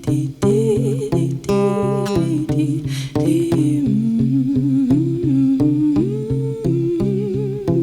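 Wordless humming of a wavering melody over plucked guitar, the guitar repeating a steady low note in an even pulse.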